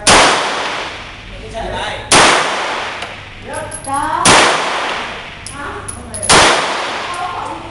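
Four shots from a 9 mm Beretta M92F pistol, fired slowly about two seconds apart, each followed by a long echoing tail.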